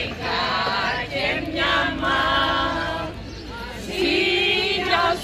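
A group of voices singing a traditional Greek Easter folk song together in phrases, with a brief lull about three seconds in.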